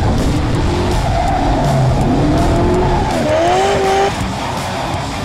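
Car tires squealing under hard acceleration or a burnout, over the car's engine. The squeal wavers up and down in pitch and stops about four seconds in.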